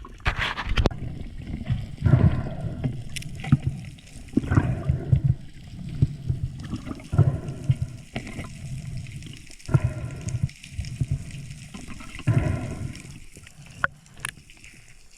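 Water gurgling and sloshing around an underwater camera, in low surges every second or two, with scattered sharp clicks.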